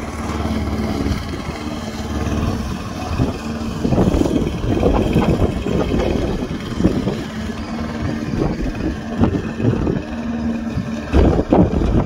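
Blackstone SP4X 510 walk-behind lawnmower's engine running steadily under load while mowing grass, with uneven louder rushes of noise over the engine note from about three seconds in.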